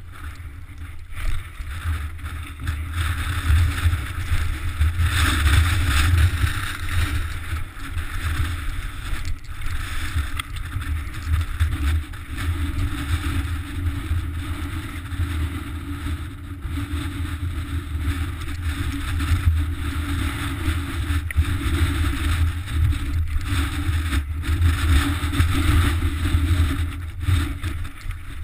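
A mountain bike rattling down a rocky, gravelly trail: tyres crunch over loose stone, with scattered knocks from the bike, under a heavy low wind rumble on the camera's microphone.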